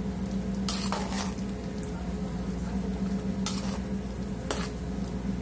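Slotted metal turner stirring a large metal stockpot of thick, simmering beef stew, scraping against the pot about a second in and twice more near the end, over the bubbling of the stew and a steady low hum.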